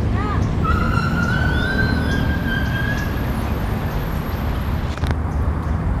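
A siren wailing, a single tone that climbs slowly and then holds, over a steady low rumble.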